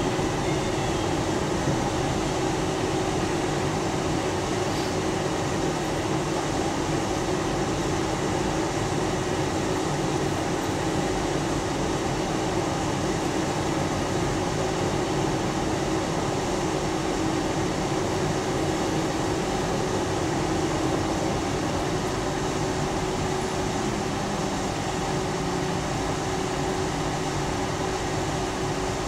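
Tram running along its track at an even pace: a steady rumble of wheels on rails with a held hum from the drive underneath.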